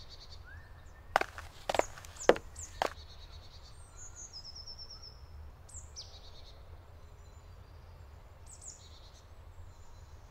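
Quiet forest ambience with a steady low rumble and birds calling: thin high chirps and a few short falling calls. A little over a second in come four sharp knocks about half a second apart.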